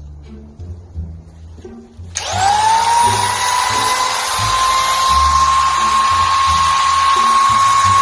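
Background music with a repeating bass line, then about two seconds in an electric power tool motor starts up. Its whine rises fast and settles into a steady high pitch, running at full speed under a loud hiss.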